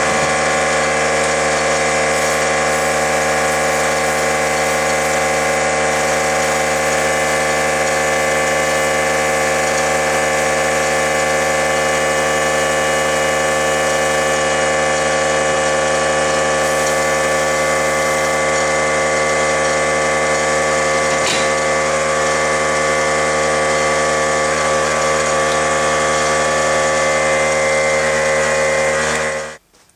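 Small air compressor running steadily with a humming drone, together with the hiss of an airbrush-type spray gun spraying paint. The sound cuts off suddenly just before the end.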